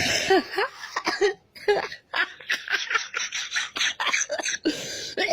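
Hard laughter breaking into coughing: a few voiced laughs at the start give way to a long run of short, raspy, breathy bursts, the coughing that comes with laughing very hard.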